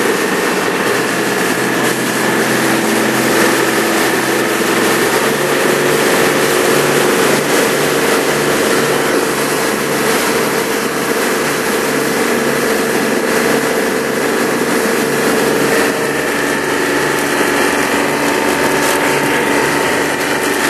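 A motor cruiser's engine running steadily while underway, loud, with wind and water rushing past the hull.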